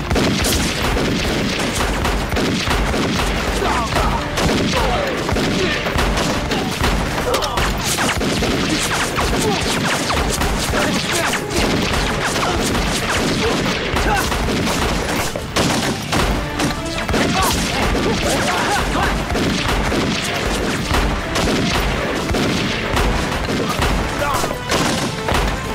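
Sustained battle gunfire: rapid, overlapping pistol and rifle shots with heavy booms, under a dramatic music score.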